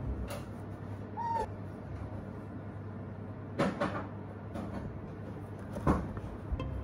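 An Asian small-clawed otter scrambling over a glass tabletop for a plush toy: a few sharp knocks of paws and toy on the glass, the loudest near the end. One short squeak a little over a second in.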